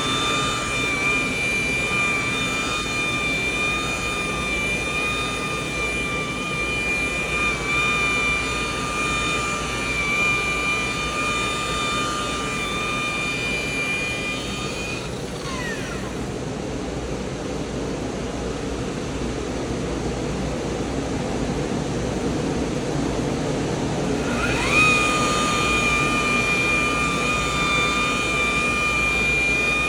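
Electric rotary buffer with a wool pad running at a steady high whine while polishing car paint. About halfway through it is switched off, its whine falling away, and near the end it is switched back on, the whine rising quickly to speed.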